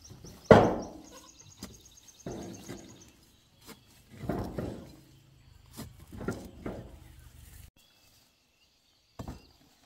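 An animal calling in short wavering cries, about four of them roughly two seconds apart, the first the loudest, over a low steady hum that cuts off suddenly about three-quarters of the way in.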